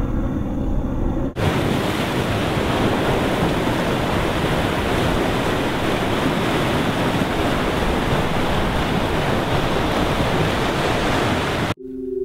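Surf breaking and washing over rocks, a loud steady rush of water that cuts in suddenly about a second in after a brief low drone. It stops abruptly near the end, where a soft steady musical tone begins.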